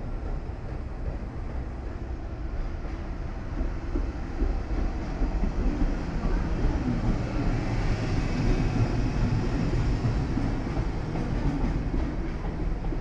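JR Freight EF210 electric locomotive hauling a container freight train through the station, growing louder from about four seconds in as the locomotive passes, then the container wagons' wheels running over the rails.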